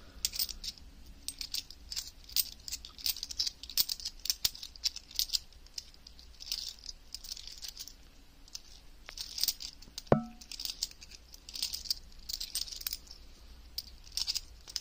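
A handful of 50p coins clinking and rattling against each other as they are shuffled through the fingers, in many small chinks. One sharper clink about ten seconds in rings on briefly.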